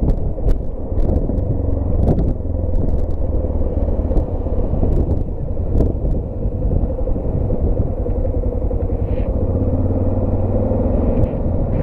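Yamaha XT660Z Ténéré's single-cylinder engine running steadily at low road speed, a constant low hum, with a few faint clicks scattered through.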